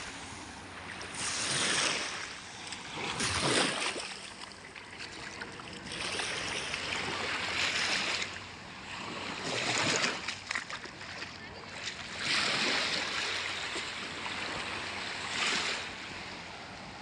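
Small sea waves washing up the sand and drawing back, swelling and fading every two to three seconds, with faint voices of people nearby.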